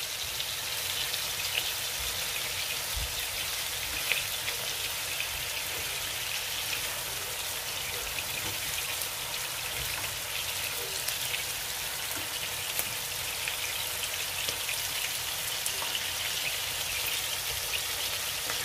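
Ground-meat kefta patties frying in hot oil in a pan: a steady sizzle with scattered little crackles and pops.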